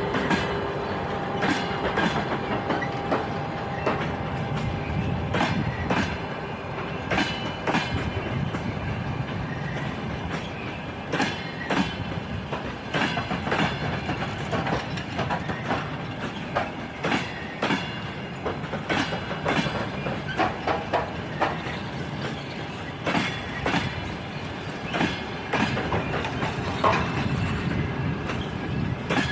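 Passenger train carriage wheels knocking over rail joints: a steady rumble of the moving train with repeated sharp clacks about once a second.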